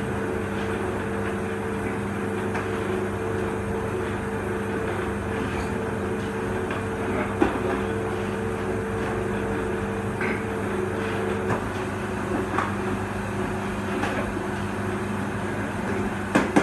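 Atlas SH500 dough roller's electric motor running with a steady hum while dough is rolled through it, with a few short knocks. A higher tone in the hum drops out about two-thirds of the way through.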